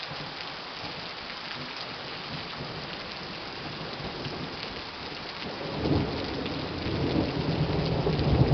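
Heavy rain falling steadily. About six seconds in, a low rumble of thunder builds and rolls on, growing louder toward the end.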